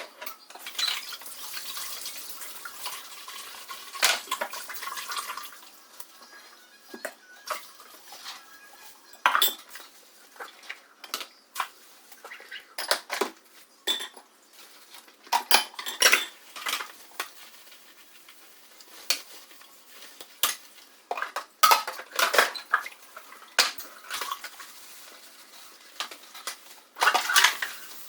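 Dishes and cutlery being washed by hand at a kitchen sink: repeated sharp clinks and clatters of plates and utensils knocking together, with tap water running for the first few seconds.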